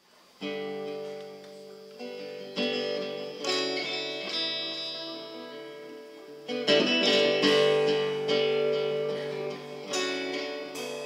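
Acoustic guitars strum chords and let them ring in a live band's song intro. The music starts about half a second in, with a fresh strum every one to three seconds.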